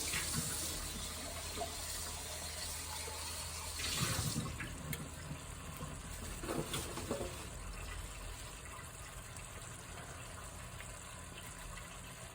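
Turkey gravy poured into a hot frying pan of chicken and vegetables, hissing and sizzling. The hiss is strongest for the first four seconds, with a brief louder burst about four seconds in, then settles to a quieter sizzle.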